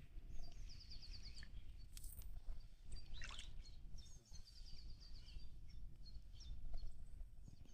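Low rumbling noise over the outdoor background, with a small songbird singing short rapid trills twice and a single sweeping chirp about three seconds in.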